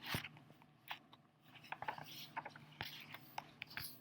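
Faint paper handling as a picture book's page is turned: soft crinkles and a scatter of small clicks.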